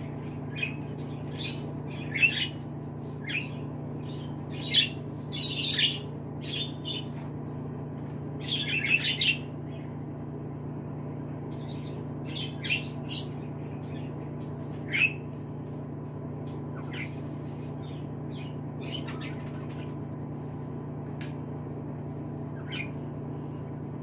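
Pet budgerigars chirping and chattering in short, scattered calls, busiest in the first ten seconds or so and sparser after, over a steady low hum.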